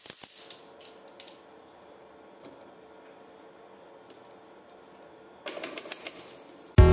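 The brass jingles of a tambourine clinking and rattling as it is handled and fitted onto its mount: a cluster of jingles at the start, a quiet lull, then another jingling burst near the end.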